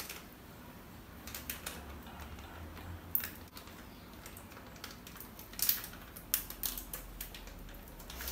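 A small red snack packet holding a single chip being torn and unwrapped by hand: scattered short crinkles and crackles of the wrapper, in a few clusters.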